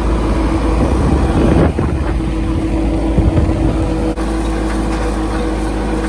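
Engine of a John Deere farm vehicle running steadily while driving, a loud low sound holding one steady pitch.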